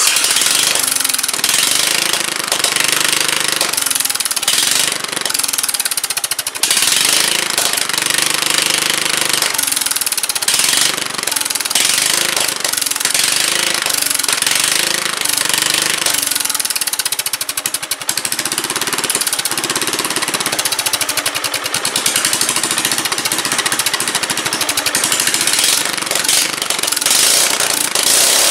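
Simplicity garden tractor engine running with its muffler removed, exhausting through a short open pipe: a loud, rapid popping exhaust note.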